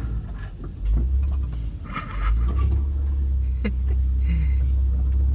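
Low, steady rumble of a vehicle driving slowly along a forest dirt track, heard from inside the cabin. There is a brief noisy burst about two seconds in and a single knock a little later.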